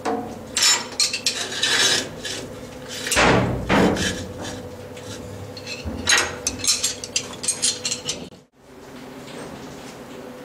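Metal clanking and knocking as a heavy air compressor and its parts are shifted by hand, with a longer, louder scraping thud about three seconds in and another run of clanks around six seconds, over a steady low hum.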